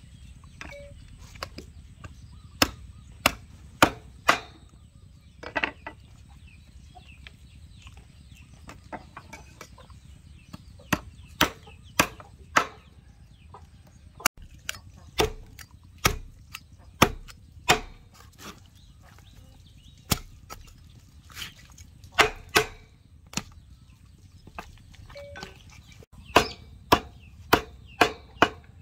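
Meat cleaver chopping a raw duck into pieces on a wooden chopping board: irregular sharp chops, some in quick runs of three or four.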